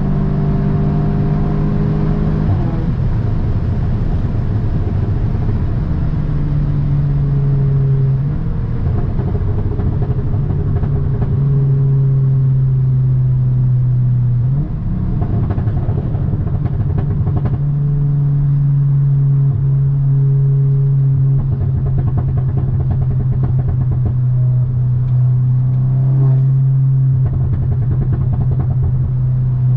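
2017 Audi S3's turbocharged 2.0-litre four-cylinder engine and exhaust while driving. The engine note holds steady for stretches and shifts pitch several times as the car speeds up and eases off.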